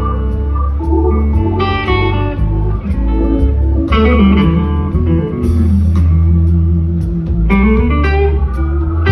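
Live electric blues guitar played through an amplifier, picking lead lines over the band's bass and drums.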